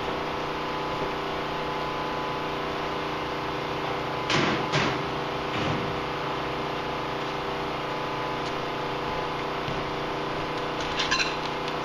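Steady machine hum with several even tones. A couple of brief knocks about four to five seconds in, and a few light clicks near the end.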